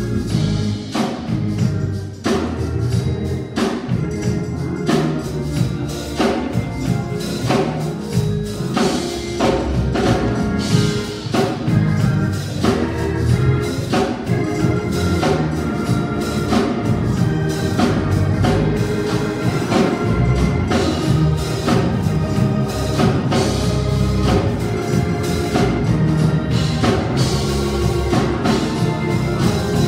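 Live church band music: organ and drums playing an instrumental with a steady beat.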